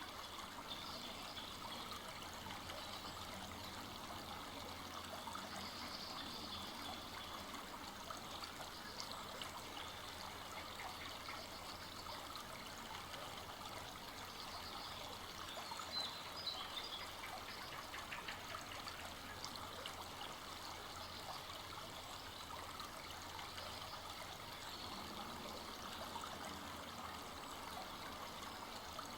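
Full-flowing forest stream running steadily, its water trickling and babbling over the stream bed.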